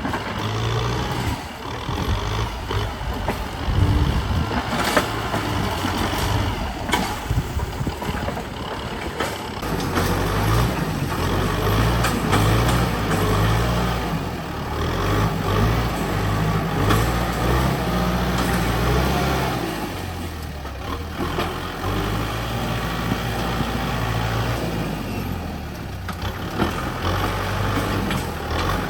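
Heavy diesel construction machinery at work: a few sharp knocks and clatter in the first third, then a big diesel engine running, its pitch rising and falling as it works under load.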